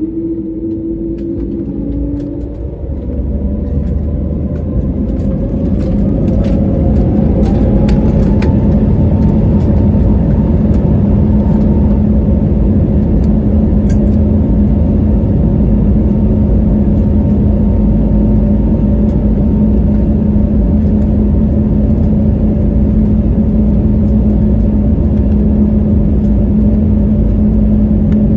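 Airbus A320neo's Pratt & Whitney geared turbofan engines spooling up to takeoff thrust, heard inside the cabin: a whine rising in pitch and the sound growing louder over the first several seconds, then running loud and steady with a constant hum.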